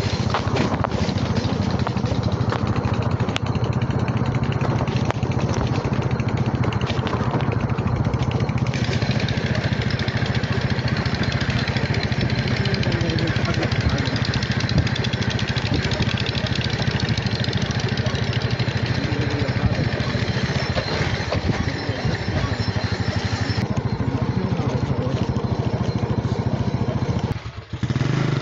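A vehicle engine running at a steady speed, heard from on board while driving along, with a brief dropout near the end.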